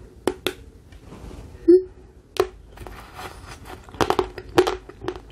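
Crisp crunching and snapping of a thin chocolate decoration being bitten and chewed close to the microphone, in irregular cracks, the loudest a little under two seconds in and a cluster about four seconds in.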